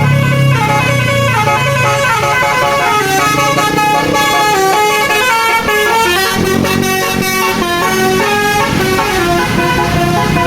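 Tour bus's telolet basuri musical air horn playing a fast melody of quickly changing notes, over the low rumble of the bus's engine.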